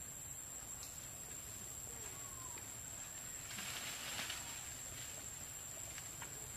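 Brief rustle of leaves and branches for about a second in the middle as macaques shift about in a tree, over faint outdoor ambience with a steady high-pitched whine and a few small clicks.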